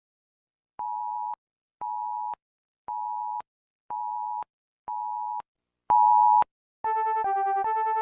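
Electronic emergency alert tones: five half-second beeps about a second apart, each a pair of close pitches, then a louder sixth beep. About seven seconds in, a fast repeating synthesized alarm melody starts.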